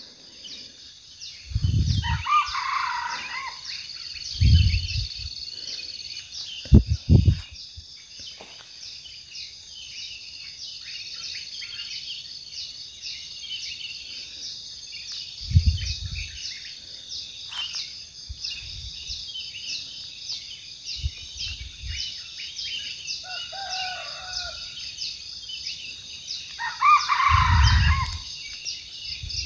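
Wild junglefowl crowing twice, about two seconds in and again near the end, over a steady high pulsing insect drone. A few short low thumps come in between.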